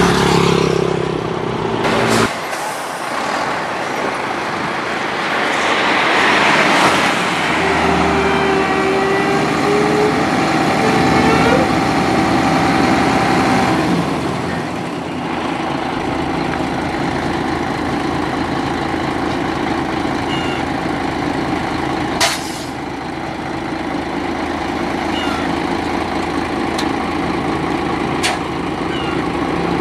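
Heavy diesel truck running by the road with passing traffic, a steady engine drone throughout. A short rising whine comes about a third of the way in, and a brief sharp noise about three-quarters of the way through.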